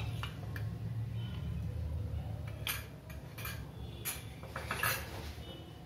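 Light metallic clinks of a steel spoon against steel kitchen utensils: a scattering of short clinks, most of them between about three and five seconds in, over a low steady hum.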